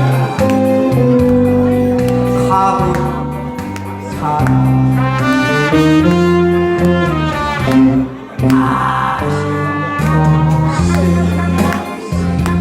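Instrumental interlude of a Korean trot song: accompaniment playing a sustained melodic lead line over a steady bass between sung verses.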